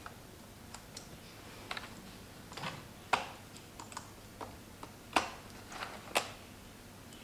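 Irregular light plastic clicks and taps from prying the bottom cover off a Dell G5 gaming laptop, working its clip latches loose. Three sharper clicks stand out about three, five and six seconds in.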